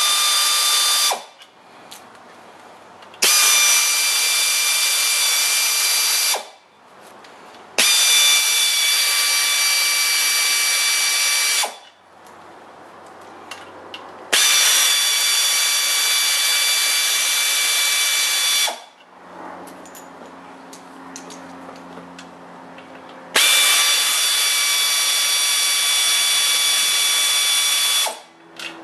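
Pneumatic air ratchet running in bursts of three to five seconds, a loud hiss with steady high whining tones, backing out the bolts that hold the bellhousing to the engine block. One run ends about a second in, and four more follow with short pauses between them.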